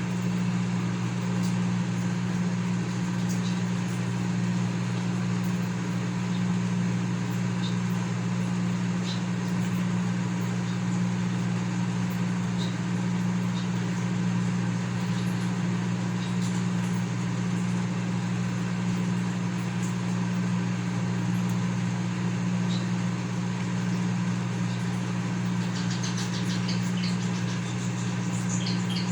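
Consul CM020 microwave oven running: a steady, even electrical hum with its fan, working normally on a fresh magnetron while heating water.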